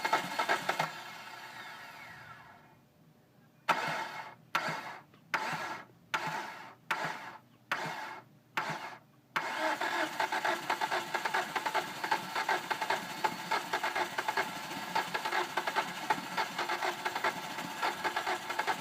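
A 2005 Hyundai Sonata's 2.4-litre four-cylinder engine being started with difficulty, a hard-start fault. The engine sound at the start fades out, then comes a string of about seven short bursts as the starter is bumped. About nine seconds in the engine catches and keeps running.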